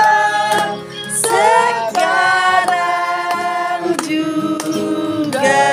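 Voices singing a song in long held notes.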